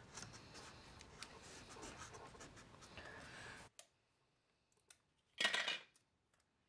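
Fingers rubbing and shifting a wooden channel strip against wood, a scratchy rustle with small clicks. It cuts off suddenly a little over halfway through. Near the end comes one short, louder rasp.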